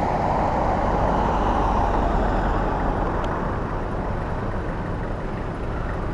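A car passing on the road, its tyre and engine noise swelling to a peak about a second or two in and then fading away.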